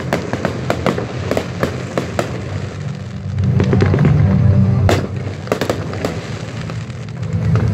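Fireworks display: a rapid series of sharp bangs and crackles from bursting shells, densest in the first couple of seconds, with another sharp bang about five seconds in.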